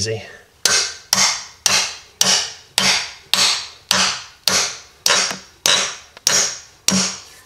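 Claw hammer striking the head of a steel wedge anchor, driving it down into a drilled hole in the concrete floor. The blows are steady, about a dozen at roughly two a second, each ringing briefly.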